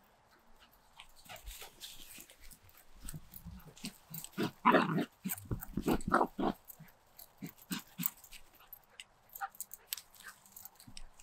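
Cockapoo puppy giving two loud, short yelping calls about halfway through, amid footsteps and rustling in the grass.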